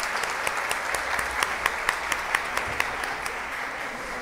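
Audience applauding steadily, a dense patter of many hands clapping, thinning slightly toward the end.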